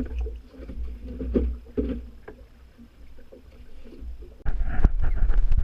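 Water sloshing and knocking against a kayak hull, with handling bumps. About four and a half seconds in, a sudden loud low rumble with sharp knocks takes over.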